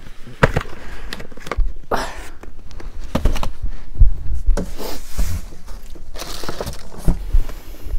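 Cardboard product boxes being handled, set down and rummaged for: scattered knocks, thumps and rustling, the loudest knock about four seconds in.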